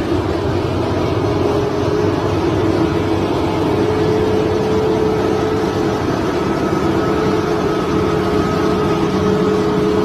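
Excavator's diesel engine running steadily under load, a dense rumble with a steady whine held over it.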